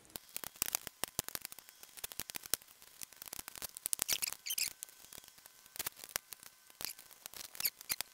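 A kitchen knife chopping cheese on a wooden cutting board: an irregular run of small, sharp taps and clicks, with a few quicker clusters about four seconds in and near the end.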